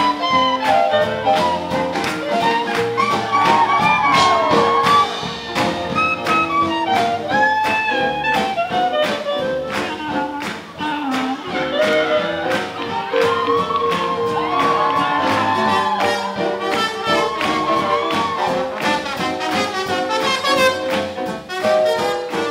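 Swing jazz band playing, with horns carrying the melody over a steady beat.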